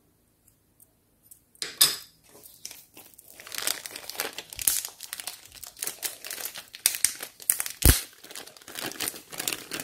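Thin clear plastic packaging bag crinkling as it is handled around a small plastic toy piece. The crinkling starts after a brief quiet moment and grows dense, with one sharp knock about eight seconds in.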